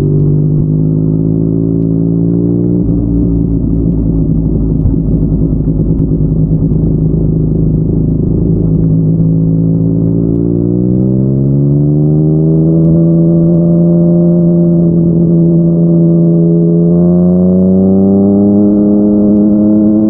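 Yamaha MT-09's inline-three engine through a Yoshimura R55 slip-on exhaust, running at a steady pitch for about ten seconds, then rising as the bike accelerates, holding, and climbing slowly again near the end.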